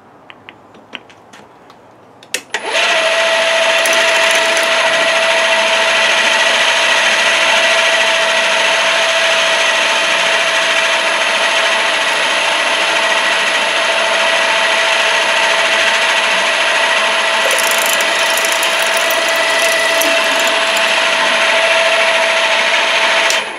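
Milling machine spindle switching on about two and a half seconds in and running steadily with a whine, while a twist drill bores a hole in a copper bus bar; it shuts off just before the end.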